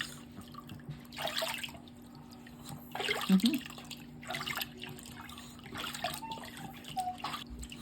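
Bath water splashing and pouring in several short bursts as a small dog is washed, the loudest splash about three seconds in, over a steady low hum.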